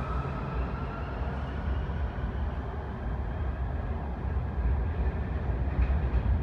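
Washington Metrorail train heard from inside the car while it runs on the track: a steady rumble of wheels and running gear, with a faint motor whine that fades about a second in.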